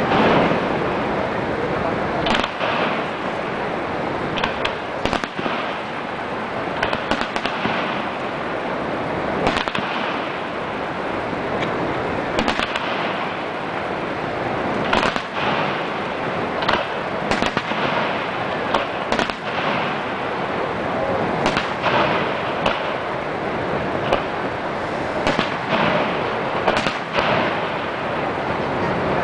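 Fireworks shells bursting overhead in an irregular string of bangs, roughly one every second or two and sometimes in quick clusters, over a constant loud rushing noise.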